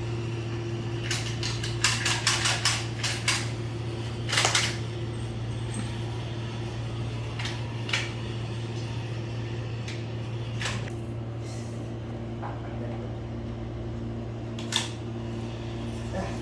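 Sharp clicks and knocks, a quick run of them in the first few seconds and single ones later, over a steady low mechanical hum.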